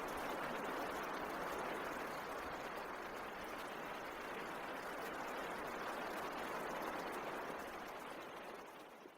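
A steady, even rushing noise, like rain, that fades out near the end.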